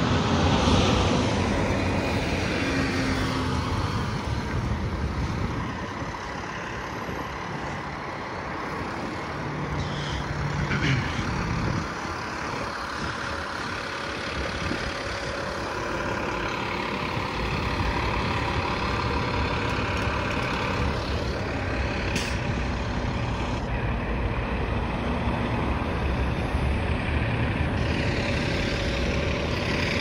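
Steady road traffic at a highway interchange: a continuous stream of vehicles passing, including heavy trucks, the noise swelling and easing as they go by.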